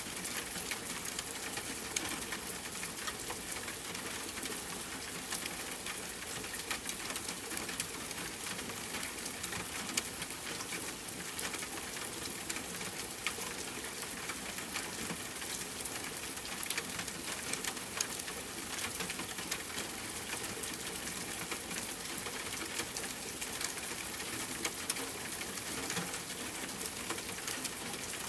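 Steady rain falling: an even hiss of rain with many distinct drop ticks scattered through it.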